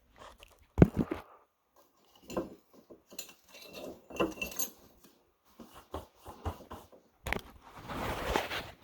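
Small metal transmission parts clinking and knocking as they are handled, with a sharp knock about a second in and denser handling noise near the end.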